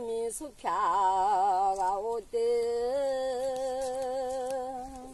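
A solo voice singing long wordless notes with vibrato. The last note is held for about three seconds and fades out near the end.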